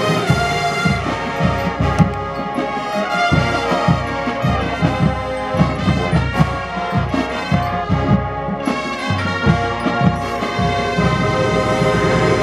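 High school marching band playing: brass sections carry the melody over marching percussion hits at a steady beat.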